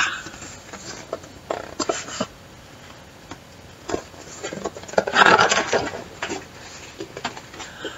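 Handling of a picture book and a page being turned: a few light taps, then a papery rustle about five seconds in.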